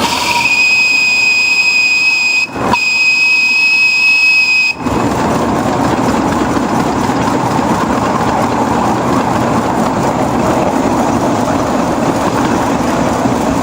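A miniature railway locomotive's whistle sounds in two blasts, about 2.5 and 2 seconds long with a brief break between them. It cuts off about five seconds in, leaving steady running noise from the moving train.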